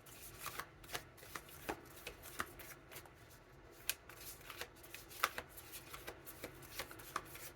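Oracle cards being shuffled by hand: a run of soft, irregular slaps and clicks of card on card, with no steady rhythm.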